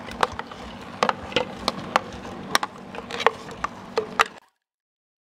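Wire whisk clinking against a stainless steel mixing bowl while cake batter is stirred, as irregular sharp taps a few times a second. The sound stops abruptly about four and a half seconds in.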